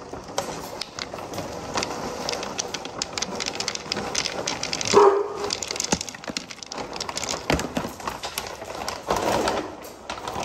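Dry dog kibble rattling and a plastic food bag crinkling as the food is handled, a dense run of small clatters and rustles. About halfway through comes one short, loud animal call.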